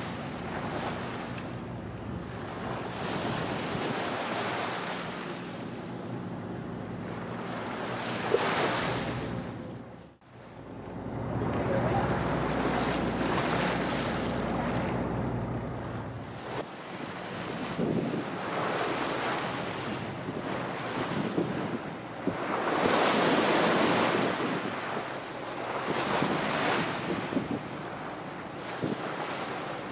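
Wind buffeting the microphone on open sea, with waves washing against a boat's hull in surges. A low steady engine hum runs under the first half. The sound drops out briefly about ten seconds in.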